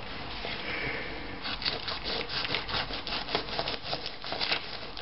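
A dull knife sawing back and forth through a crappie's scaly skin behind the head, in quick scraping strokes that start about a second and a half in.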